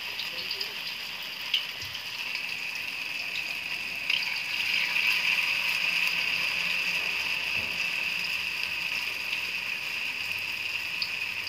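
Flour-coated tofu blocks frying in hot oil in a wok: a steady sizzle with scattered small pops. The sizzle grows louder about four seconds in as another block goes into the oil.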